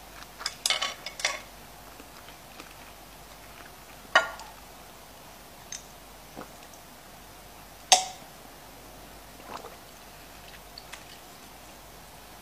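Scattered sharp clicks and taps of eating utensils and dishes: chopsticks against a frying pan, then a drinking glass being handled. There is a quick run of taps near the start and two louder single clinks about four and eight seconds in.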